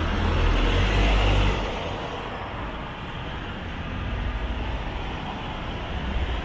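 City street traffic: a motor vehicle passes close by with a low rumble and tyre noise for about the first second and a half, then fades into a steady background of traffic.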